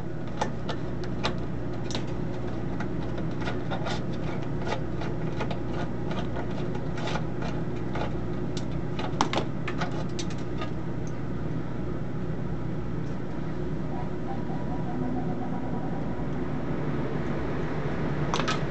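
Screwdriver and hand work on a terminal of a steel oscilloscope chassis panel, giving scattered light metal clicks and scrapes in the first half that thin out after about eleven seconds. A steady low machine hum runs underneath.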